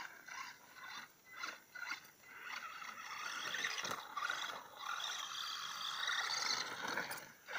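Electric motor and gears of a 1:12 RC buggy whining as it drives over quarry dirt: short bursts of throttle at first, then a few seconds of steady high whine at speed that cuts out near the end.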